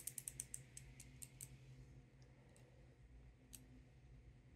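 Faint clicking of a reusable injection pen's dose mechanism as its plunger is pushed: a quick run of about six clicks a second for the first second and a half, then a few single clicks spaced out, as the dialled dose of tirzepatide is delivered and the dial counts back toward zero.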